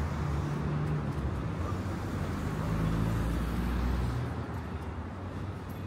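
Road traffic on a busy city avenue: a vehicle's engine hums close by and fades away about four seconds in, leaving lighter traffic noise.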